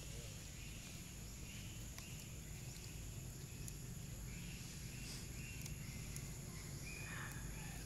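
Steady high-pitched insect drone over a low background rumble, with a few faint short high chirps near the end.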